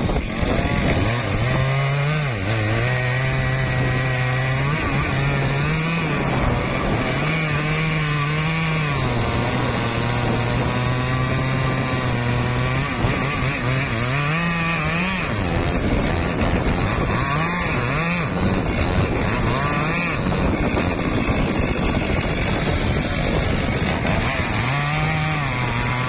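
Two-stroke chainsaw cutting into the base of a teak trunk. The engine runs continuously, its pitch rising and falling repeatedly as the throttle and cutting load change.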